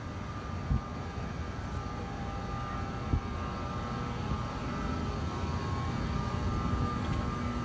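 Bombardier ALP-46A electric locomotive running beside the platform: a steady hum of its cooling blowers with several thin, steady whining tones over a low rumble, slowly growing louder. Two short knocks sound about a second and three seconds in.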